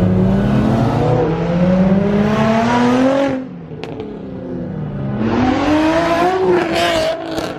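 A car engine revving loudly as it accelerates away, climbing in pitch for about three seconds before easing off. It revs up again about five seconds in, with a few sharp crackles near the end.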